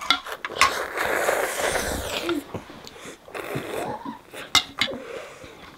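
A child slurping instant noodles: one long, loud slurp starting about half a second in and lasting about two seconds, followed by short clicks of eating and utensils.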